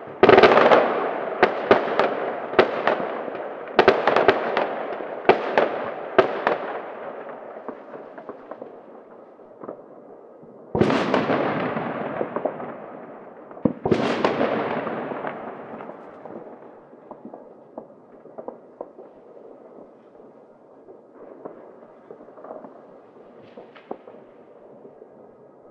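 New Year's Eve fireworks and firecrackers going off in city streets: a quick run of sharp bangs and crackles over the first several seconds, then two big bangs about eleven and fourteen seconds in, each trailing off over a few seconds. After that come scattered fainter pops.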